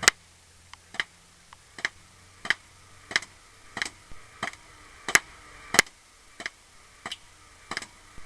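Remote control airsoft tank firing BBs, a steady string of sharp pops about three every two seconds.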